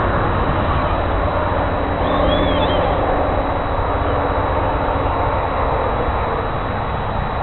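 Steady rushing noise of wind buffeting the microphone outdoors, with a short bird chirp about two seconds in.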